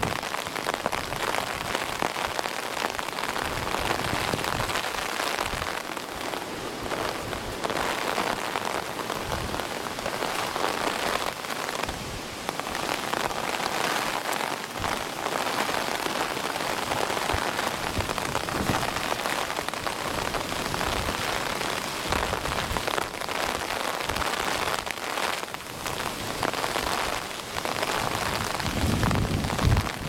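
Steady rain pattering down in a typhoon, with a gust of wind rumbling on the microphone near the end.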